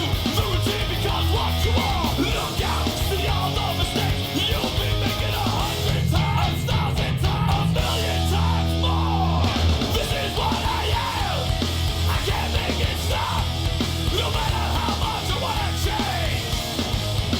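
Loud heavy rock music with yelled vocals.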